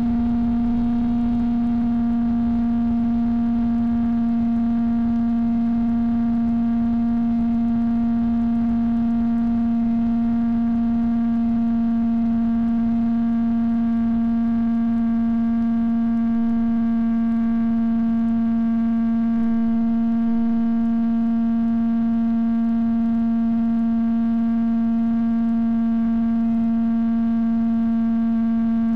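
Steady electrical buzz at one fixed pitch with a string of overtones, carried on the audio track of an analog FPV video recording; the pitch never follows the throttle.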